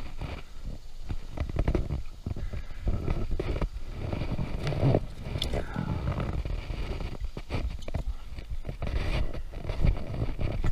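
Gear knocking and scraping against a small boat's hull, in irregular clusters of sharp knocks over a low rumble.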